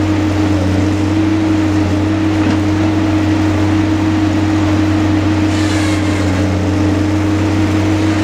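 Diesel engine of a knuckleboom log loader running steadily under hydraulic load, a constant low drone. A brief higher-pitched whine rises and falls about five and a half seconds in.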